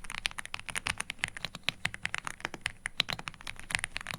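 Fast, continuous typing on an EpoMaker Aula F75 mechanical keyboard with Reaper linear switches and PBT pudding keycaps. It is a quick run of keystroke clacks, many a second, with a creamy sound.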